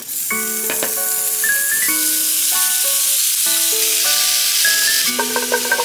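Food sizzling as it fries in a pan, a steady hiss under background music of sustained, changing notes.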